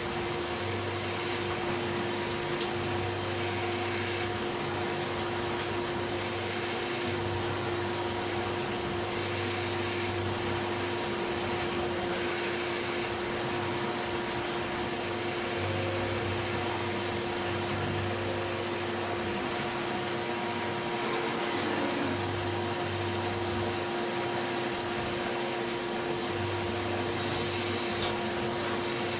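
CNC milling machine drilling with flood coolant from a ring of nozzles around the spindle: a steady hiss of spraying coolant over a steady machine hum. A short high whine repeats about every three seconds through the first half, in step with the bit pecking in and out of the hole.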